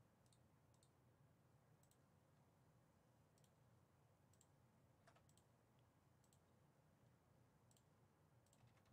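Near silence with about ten faint, sharp computer mouse clicks scattered irregularly over a low room hum.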